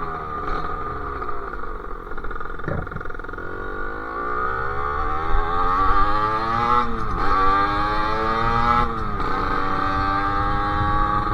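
Sherco SM-R 50's two-stroke engine through its KRM exhaust, revs falling at first, then rising as the bike accelerates through the gears. The pitch drops sharply at two upshifts, about seven and nine seconds in, then holds steady at cruising speed.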